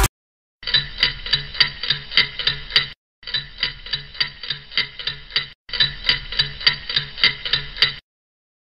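Clock-ticking sound effect marking a countdown: a steady run of about four ticks a second, broken into three stretches of roughly two and a half seconds each by brief pauses.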